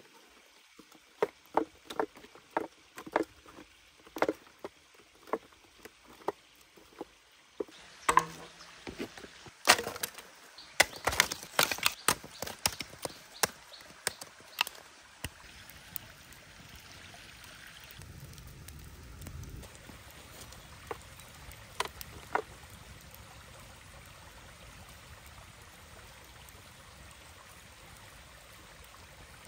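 Chopping strokes on wood, about two to three sharp knocks a second. About a third of the way in they give way to a louder, irregular flurry of cracking and knocking. This fades into the steady running of a stream, with a couple of last knocks.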